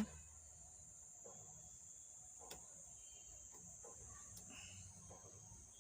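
Near silence: faint room tone with a steady high-pitched drone and a low hum, and one faint click about two and a half seconds in.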